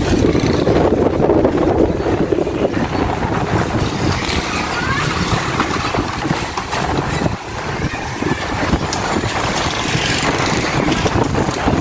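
Strong stormy wind buffeting the phone's microphone: a loud, uneven rumble that swells and eases in gusts.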